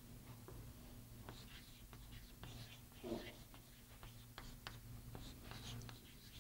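Chalk writing on a blackboard: faint scratching strokes and sharp taps as words are written, over a steady low hum. A brief low sound, the loudest moment, comes about three seconds in.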